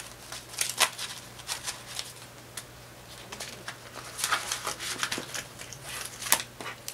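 Paper banknotes rustling as they are handled and tucked into the vinyl pockets of a ring-binder cash budget book, with pages turned over, in scattered crisp rustles and a few sharp clicks.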